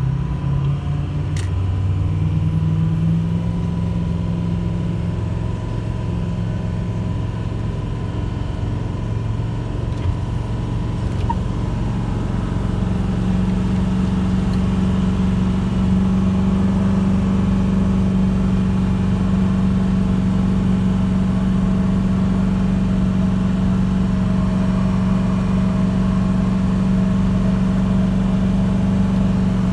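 A vehicle engine running at a steady speed. Its pitch rises about 12 seconds in and then holds steady.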